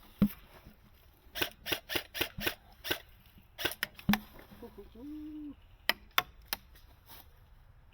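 Airsoft guns firing: sharp snapping shots. The two strongest, about a quarter-second and about four seconds in, carry a low thump; a quick string of snaps comes between them and three more about six seconds in.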